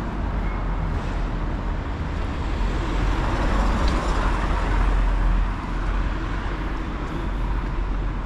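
City street traffic: a steady low rumble of motor vehicles. It swells over a few seconds in the middle as a vehicle passes close, then eases off.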